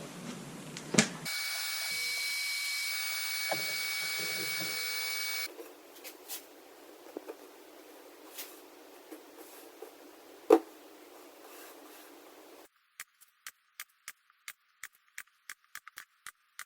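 A finish sprayer runs with a steady hiss and a constant whine for about four seconds as a clear coat is sprayed. Then come scattered light knocks and clicks, and near the end a quick regular ticking at about three per second.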